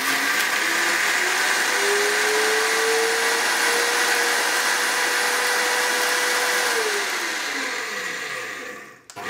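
High-power countertop blender grinding sprouted buckwheat, dates and cacao nibs into a crust mix. Its motor whine climbs in pitch as it comes up to speed and then runs steady. About seven seconds in it is switched off, and it winds down to a stop with a falling pitch.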